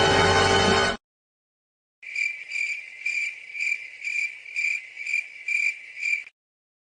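Crickets-chirping sound effect, the meme cue for an awkward silence: a high chirp repeating about twice a second, around nine times, starting about two seconds in. Before it, a loud burst of music cuts off about a second in, followed by a second of silence.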